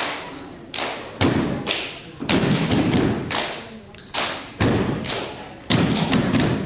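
A group of performers stamping and slapping in unison in a step routine: sharp, loud thuds in an uneven rhythm of about two a second, each ringing briefly in the hall, with voices in between.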